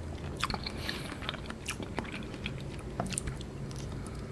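A person chewing soft agar-agar jelly made from banana milk, close to the microphone: scattered wet mouth clicks and smacks.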